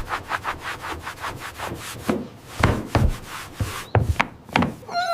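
Hand saw cutting wood in quick, even strokes, about six or seven a second, with a few heavier wooden knocks in the second half.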